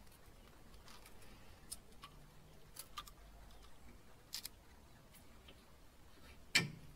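Faint, scattered metallic clicks and taps as a bolt is turned by hand in a rusty front brake caliper, with one louder knock near the end.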